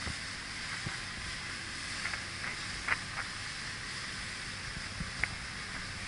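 Steady wind and sea noise with no horn sounding, broken by a few faint clicks, the clearest about three seconds in and again near the end.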